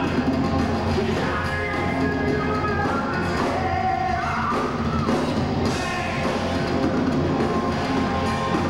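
Heavy metal band playing live: distorted electric guitars, bass and drum kit, heard from among the audience.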